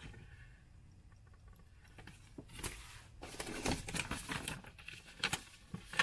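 Sheets of paper rustling and crinkling as they are handled and sorted by hand, in irregular little bursts that start about two and a half seconds in.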